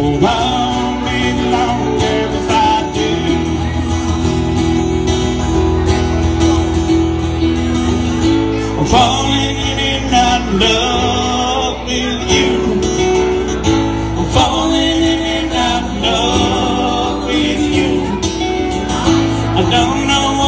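Live band music with acoustic guitar and keyboard playing together.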